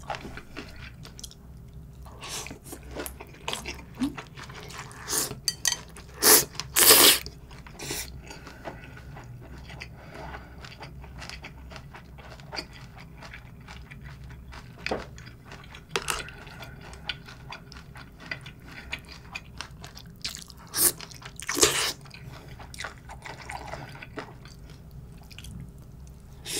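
Close-miked chewing and crunching of raw seafood and noodles from a bowl of cold mulhoe: wet mouth sounds and small crunchy clicks. A few louder bursts come about six to seven seconds in and again a little past twenty seconds.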